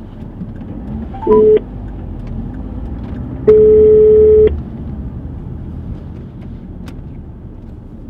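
Steady rumble of a car on the road with a telephone ringback tone over it: a short beep about a second in, then a one-second tone at about three and a half seconds, the call ringing out before it is answered.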